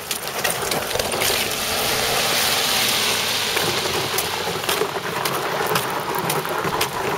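A car passing on a wet road, its tyre hiss swelling to a peak about three seconds in and then fading. Under it runs a steady rolling rattle with scattered clicks, from a small hand-pulled cart and footsteps on the slushy pavement.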